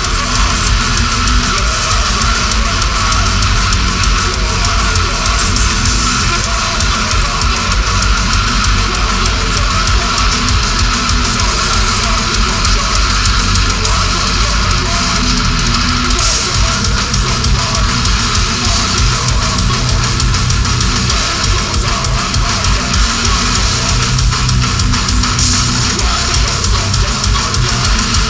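Death metal band playing live: heavily distorted electric guitars, bass and a fast, pounding drum kit, loud and dense throughout.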